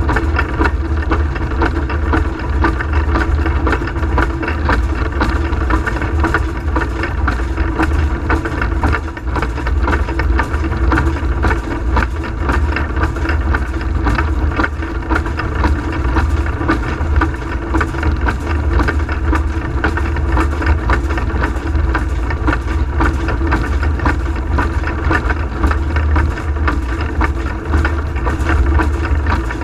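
Peckett & Sons industrial steam locomotive heard from its own footplate while running under way: a steady, loud mix of exhaust beats, motion and wheels on the rails.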